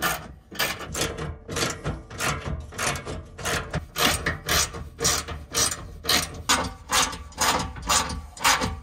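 Hand ratchet wrench clicking as bolts on a metal cargo rack are tightened: short bursts of clicks on each back-stroke, about two a second, repeating steadily.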